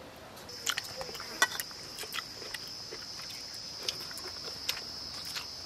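A steady high insect drone starts about half a second in and carries on, over scattered light clicks and taps of fingers on steel plates while eating rice by hand.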